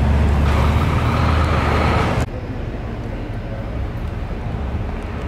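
A golf cart driving past with a low rumble and a broad hiss for about two seconds. The sound then cuts to a quieter, steady outdoor hum.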